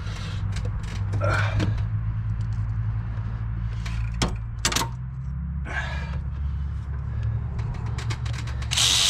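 A handheld power tool spinning a bolt out of the engine for about a second near the end, after a few light clicks of metal tool handling over a steady low hum. The bolt comes out loose, not tight.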